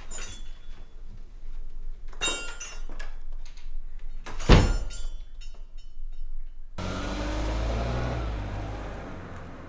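A few light knocks, then a door shuts with a sharp bang about halfway through. A car engine then starts up and the car pulls away, its sound fading toward the end.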